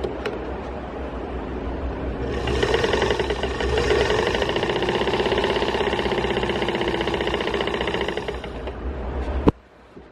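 Vintage Eversew Universal sewing machine (a Singer 15 clone) stitching fabric under its electric motor. It runs slowly at first, speeds up about two seconds in to a fast, even stitching run, slows near the end and stops abruptly with a click.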